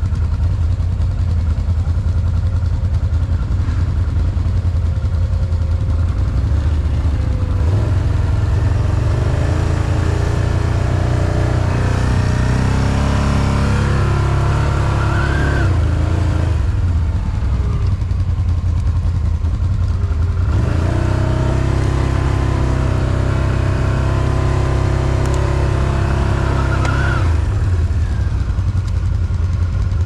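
Can-Am Outlander 1000 XMR ATV's V-twin engine running hard in mud, with two long revs under load, about a third of the way in and again in the second half, each climbing in pitch just before it eases off.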